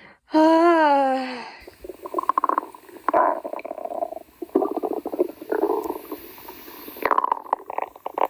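Hungry stomach growling: a long rumble of rapid pulses that swells and fades several times, starting about two seconds in.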